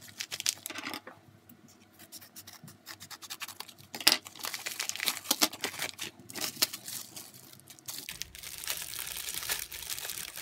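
Plastic packaging crinkling and rustling in the hands: a postal mailer bag being opened and a clear plastic bag of ballpoint pens handled. It is faint for a couple of seconds, then a sharp crackle about four seconds in, with denser rustling near the end.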